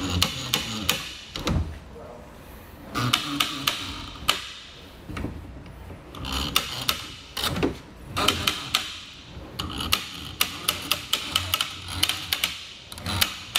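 Malone Telos load-assist arms clicking onto their catches as a kayak is eased up them one side at a time: runs of sharp clicks every couple of seconds, with handling noise between.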